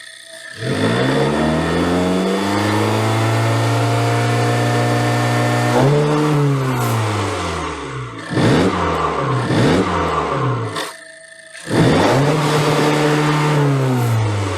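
Honda Civic Type R FK8's 2.0-litre turbocharged four-cylinder engine revving. It climbs about half a second in, holds steady for a few seconds, then falls away. A string of quick blips follows, then, after a brief lull near the end, one more rise and fall.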